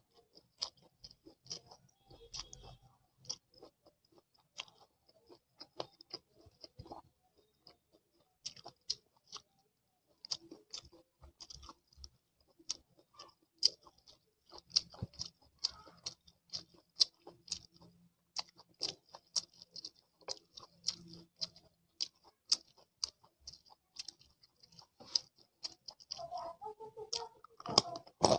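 A person chewing sweet corn and fried chegodilu rings close to the microphone: a steady run of many short, sharp crunching clicks.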